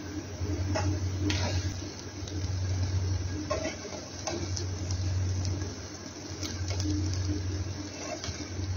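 Spatula scraping and knocking against a frying pan as fried rice is stirred and tossed, a short scrape or knock every second or so, over a steady low hum.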